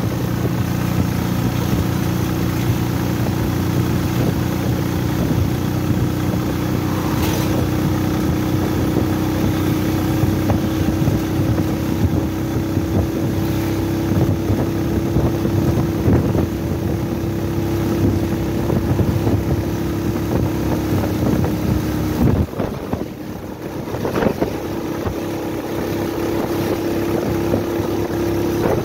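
A road vehicle's engine runs steadily under wind and road noise, heard from on board while it drives along. About 22 seconds in, the engine note and overall loudness dip for a couple of seconds, then pick back up.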